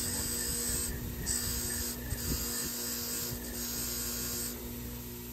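Bench grinder wire wheel running with a steady motor hum while a brake caliper piston is pressed against it in four short passes, the wires scrubbing corrosion and pitting off the metal. The scrubbing stops about four and a half seconds in, and the grinder keeps running.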